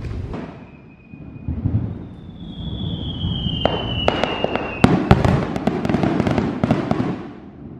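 Aerial fireworks display: low booming bursts, a whistling shell whose whistle falls slowly in pitch for about three seconds, then a dense run of sharp crackling bursts in the second half.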